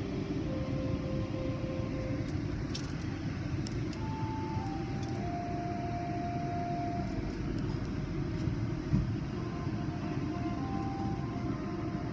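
Steady low rumble of an automatic tunnel car wash heard from inside the car's cabin: the wash machinery running and water spraying onto the car, with a single thump about nine seconds in.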